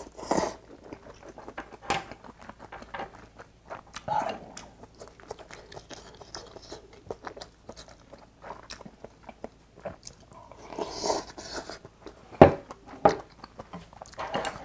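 Close-miked eating: a slurp of ramen noodles from army stew at the start, then steady wet chewing with many small mouth clicks. A couple of sharp clicks come near the end.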